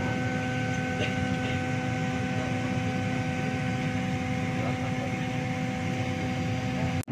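Airliner cabin noise: a steady rush of ventilation air with a constant low hum, cut off abruptly near the end.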